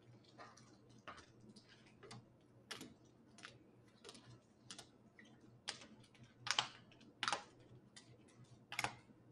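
Faint, irregular small clicks and taps, roughly one every half second to a second, with a few louder ones in the second half.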